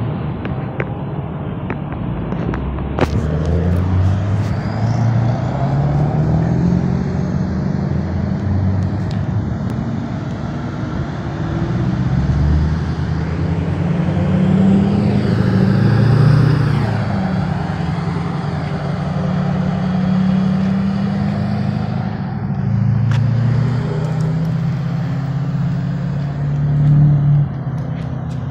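Lifted pickup trucks accelerating hard from a standstill. Their engines rev up through the gears in repeated rising steps that drop back at each shift.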